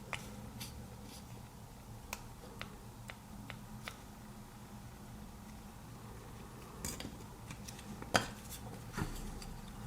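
Light clicks and taps of the plastic parts, rubber keypad and circuit board of a disassembled TV remote being handled, scattered through, with a sharper click about eight seconds in.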